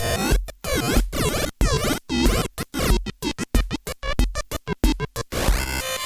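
Live electronic music on synthesizers and drum machine: sweeping synth tones chopped into a stuttering run of bursts with gaps, the cuts coming faster and faster. A rising sweep near the end leads back into the full, steady beat.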